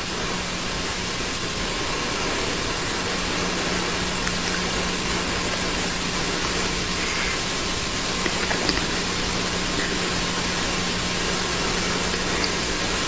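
Steady hiss with a low hum, the noise floor of an old video recording, with a few faint knocks of arms against a wooden kung fu training dummy.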